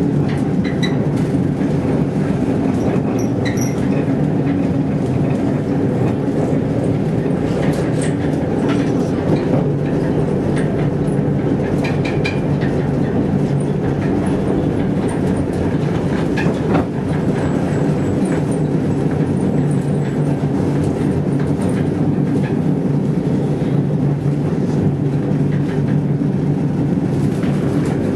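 Helsinki tram running along snowy street rails, heard from inside the car. A steady low rumble of wheels and running gear, with scattered clicks and a few brief high-pitched squeaks.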